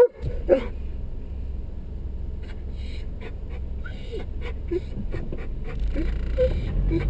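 A dog whining and whimpering in short, high, bending cries inside a car, over the low hum of the idling engine. The engine grows louder about six seconds in as the car pulls away.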